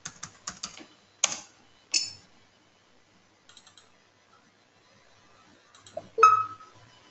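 Computer keyboard typing: a quick run of key clicks, then a few single keystrokes and clicks. Near the end there is a brief, louder sound with a held tone.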